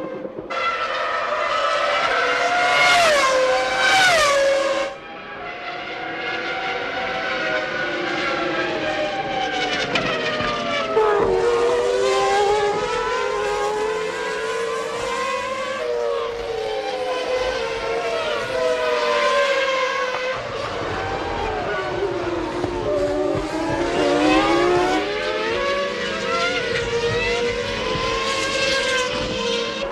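1997 Formula One racing car engines revving high, with pitch sweeping up and down through gear changes and braking as several cars pass. The sound drops abruptly about five seconds in and picks up again at a different pitch.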